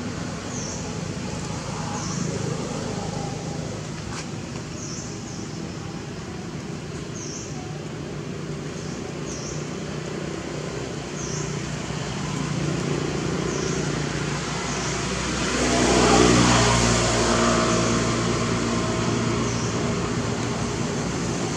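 Motor vehicle engine running steadily, swelling as a vehicle passes about 16 seconds in. Short high chirps repeat every second or two.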